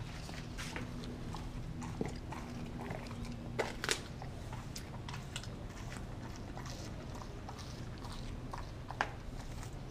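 Kelpie–German Shepherd cross dog chewing and crunching on frozen raw turkey steak, with irregular sharp bites and cracks. The loudest crunches come about four seconds in and again near the end.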